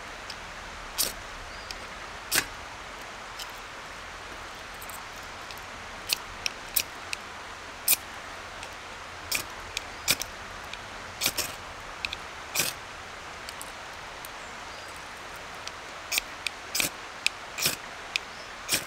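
Ferrocerium rod scraped with a striker over a Trangia spirit burner to light the alcohol: about eighteen short, sharp scrapes at irregular intervals, some in quick pairs, with a pause of a few seconds in the middle.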